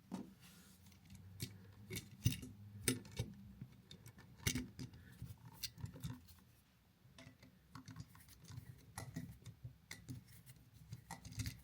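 Screwdriver tightening the ground terminal screw on an electrical outlet: faint, irregular small metal clicks and scrapes, with a brief lull a little past halfway.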